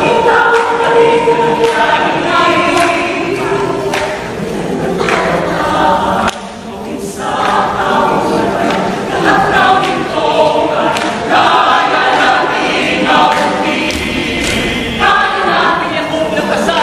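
A large choir singing, many voices sustaining held, changing chords, with a short dip in loudness about six seconds in.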